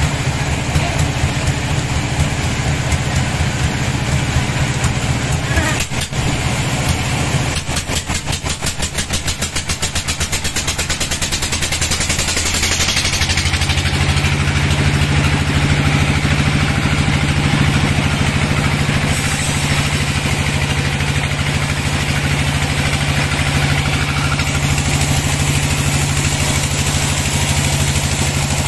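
Band sawmill running with a steady machine hum, a rapid pulsing partway through, then a steadier, louder run as the band blade saws lengthwise through a large log.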